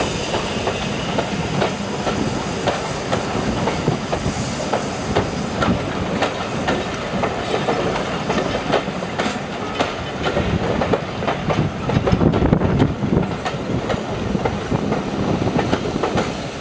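Passenger coaches of a steam-hauled train rolling past on the rails, wheels clicking and knocking over the rail joints in an irregular stream over a steady rumble, louder for a moment about twelve seconds in.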